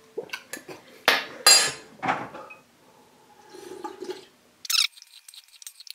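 A metal spoon clinking and scraping against a large ceramic soup bowl, with a few sharp knocks in the first two seconds, then quieter sounds.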